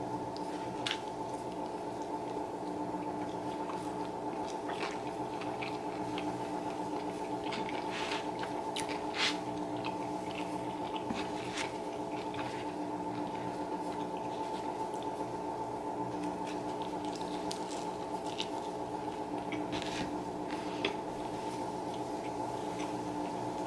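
Close-up eating sounds: a person biting into and chewing a breakfast sandwich, with scattered wet, squishy clicks and smacks, over a steady low hum.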